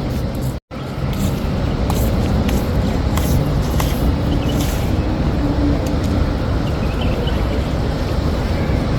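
Steady outdoor background noise, an even rush with faint distant voices in it. The sound drops out completely for an instant about half a second in.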